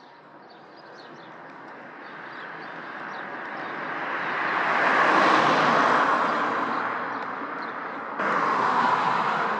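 A vehicle passing on the road: tyre and engine noise that rises to a peak about five seconds in and then fades. About eight seconds in it cuts abruptly to a louder rush of road noise.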